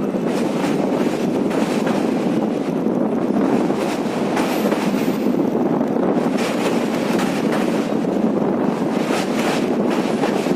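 Train running on the rails, with a steady rolling rumble and the wheels clacking irregularly over rail joints.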